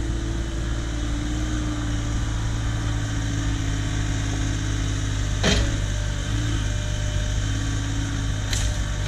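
Excavator engine running steadily, with a single sharp knock about five and a half seconds in and sharp cracks starting near the end as the machine begins working the wood.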